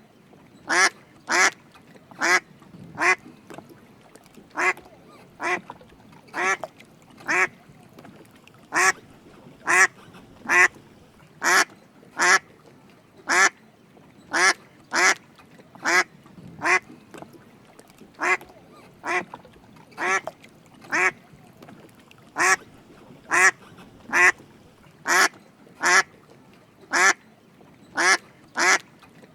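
Drake mallard duck quacking: a steady run of short quacks, about one a second, often two close together.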